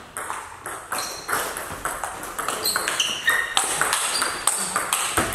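Table tennis rally: the ball clicking off the bats and bouncing on the table in quick, uneven succession.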